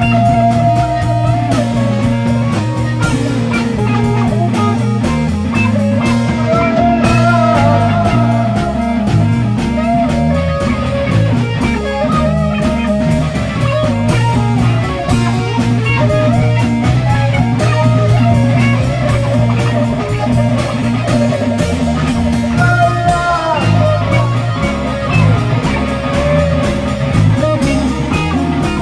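Background rock music, led by a guitar with bending notes over a steady drum beat.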